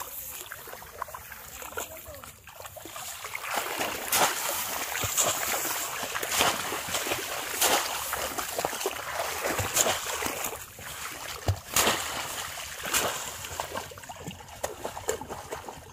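Shallow paddy-field water splashing and sloshing as a bamboo polo fish trap is carried through it and pushed down into it, with many short sharp splashes. The splashing grows louder a few seconds in and eases off near the end.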